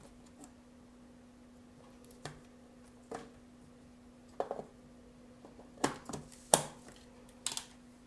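Scattered sharp clicks and knocks of PC hardware being handled, about seven of them with the loudest near the end, as a memory stick is moved to another slot on the motherboard. A steady low hum runs underneath.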